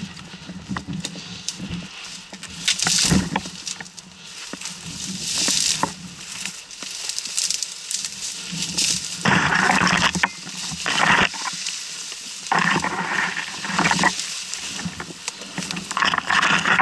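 Leaves and twigs rustling and scraping close against the camera as someone pushes through dense brush, with small snaps. The rustling comes in several longer, louder bursts in the second half.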